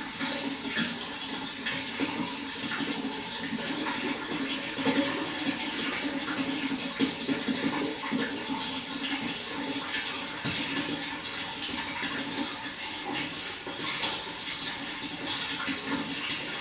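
Water flowing and splashing steadily, a continuous rushing with many small splashes.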